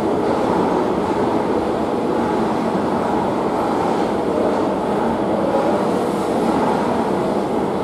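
Madrid Metro train running: a steady rumble of wheels on rail, even throughout with no squeal or clear clicks.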